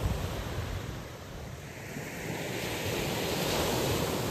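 Small waves breaking on a shingle beach, one wave building and washing up the stones in the second half.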